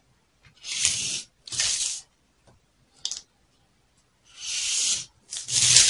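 A felt-tip marker scratching along a pattern ruler on drafting paper, in about five separate strokes of half a second to a second each.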